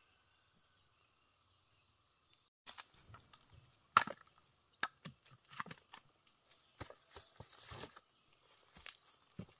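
Near silence, then from about two and a half seconds in a string of irregular sharp knocks and clicks, the loudest about four seconds in.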